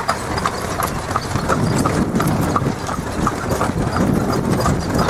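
Horse pulling a buggy, its hooves clip-clopping in a steady rhythm of about three strikes a second over a steady low rumble.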